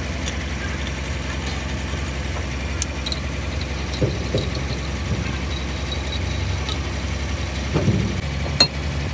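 An engine idling with a steady low hum. A few short metal clicks as wheel nuts are handled and threaded onto a truck's wheel-hub studs.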